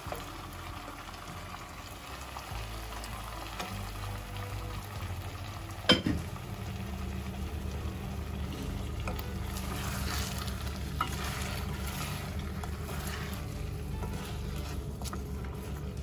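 Food sizzling in hot oil in a frying pan, with a single sharp knock about six seconds in.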